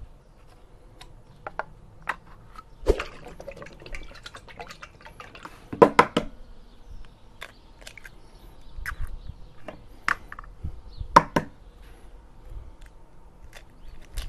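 Eggs cracked one after another against the rim of a stainless steel mixing bowl, several sharp taps, with liquid pouring and dripping into the milk and cream in the bowl.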